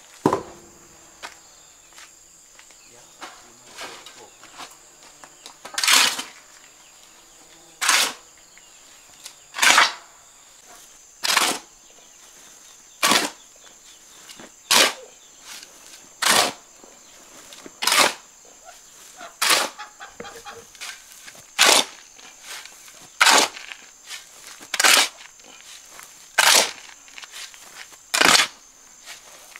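A steel shovel scraping across a concrete floor and casting dry sand and cement back onto the pile, a stroke about every second and a half to two seconds, as the dry mix is turned. A thump comes right at the start.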